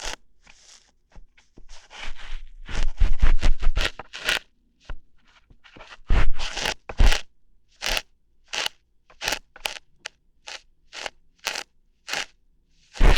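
Close-miked ear-hair plucking ASMR: crisp crunching and scraping strokes at the ear, a dense flurry in the first few seconds, then single plucks about every three-quarters of a second.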